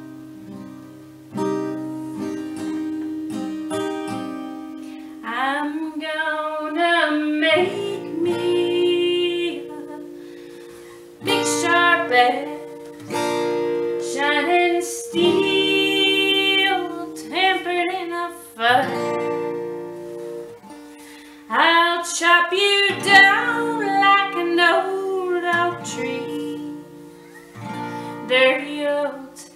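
Acoustic guitar strummed and picked, with a woman singing along in phrases that break off briefly a few times and then start again.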